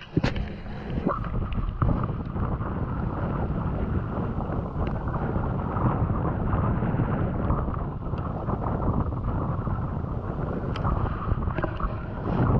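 Steady wind rushing over the microphone on an open boat, with a few light clicks and knocks.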